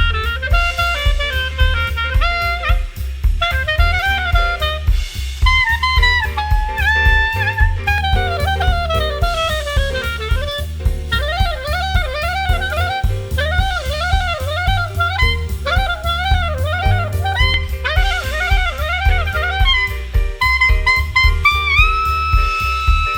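Upbeat swing jazz instrumental: a horn plays a running melody over drum kit and bass, settling into a long held note near the end.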